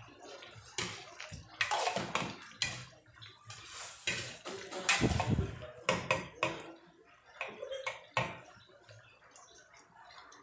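A spoon stirring a pot of chicken afritada stew: irregular knocks and scrapes of the spoon against the pot, with the sauce sloshing.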